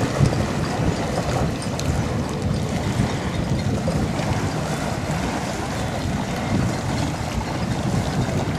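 Wind buffeting the camera's microphone, a steady low noise with no distinct events.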